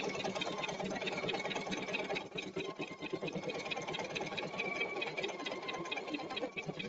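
Husqvarna Viking embroidery machine stitching steadily in a rapid, even rhythm as it sews the first colour of an in-the-hoop quilt block: the placement lines and piece numbers on stabilizer.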